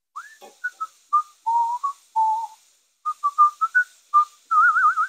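A man whistling a tune through his lips: a run of short, pure notes, ending in a quick warbling trill near the end.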